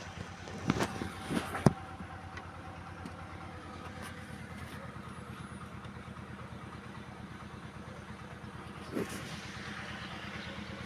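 An engine idling steadily, with a few sharp knocks in the first two seconds and another about nine seconds in.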